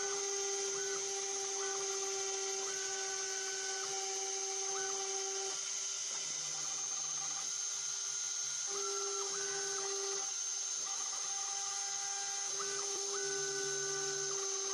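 Homemade CNC router engraving plexiglass with a tile drill bit: a steady high spindle whine runs throughout, over stepper motors singing in steady tones that switch on and off and change pitch every second or so as the axes move along the letters.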